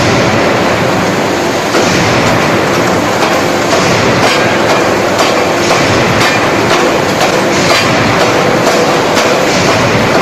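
Electro-hydraulic open-die forging hammer at work: a loud, continuous mechanical clatter with repeated blows at uneven spacing.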